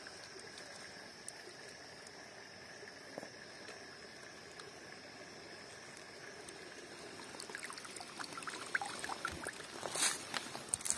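Shallow pool water stirred by a hand, with small splashes and drips that grow busier after about seven seconds, and a brief rustle near the end.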